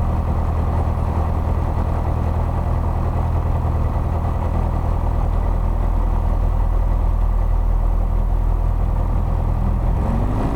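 Piper Archer II's four-cylinder Lycoming O-360 engine running steadily at low power, then beginning to rise in pitch near the end as the throttle is opened for the takeoff run.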